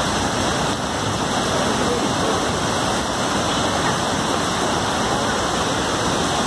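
Heavy water noise, a steady and even rushing with no breaks.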